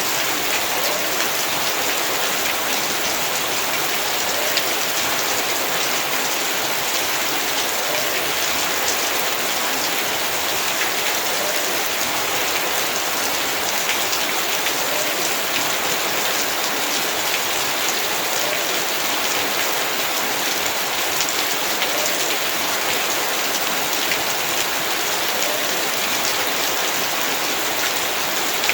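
Heavy rain falling steadily, a dense even hiss with countless drops spattering on hard surfaces.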